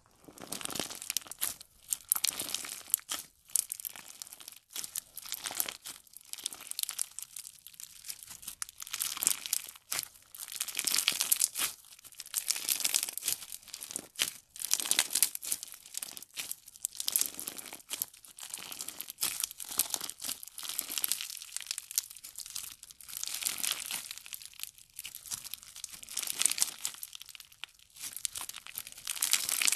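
Clear slime packed with small beads being squeezed, pressed and stretched by hand, giving dense crunchy crackling and popping that swells with each squeeze.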